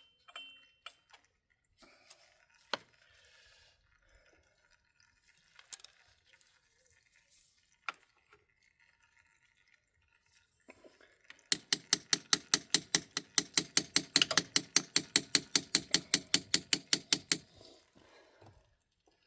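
Electric impact gun hammering in a rapid, even train of blows for about six seconds, starting past the middle. Before it come scattered small clicks and taps of tools and metal parts.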